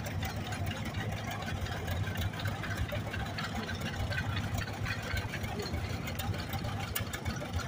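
John Deere 320 tractor's two-cylinder engine running steadily at low speed as the tractor drives slowly past.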